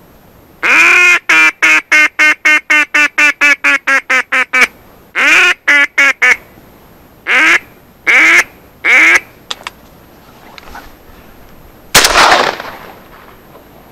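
A mallard duck call blown in a long, fast run of about fifteen quacks, then a few single spaced quacks. This is a hunter's hail-and-quack sequence to draw ducks in. Near the end comes one loud, sudden bang that dies away over about a second.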